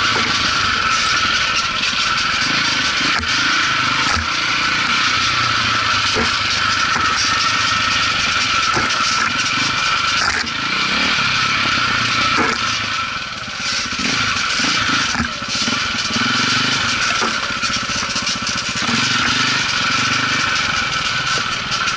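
KTM 400 EXC enduro motorcycle's four-stroke single-cylinder engine running under load on a rough trail, revs rising and falling with throttle, with occasional knocks from the bike over the rough ground.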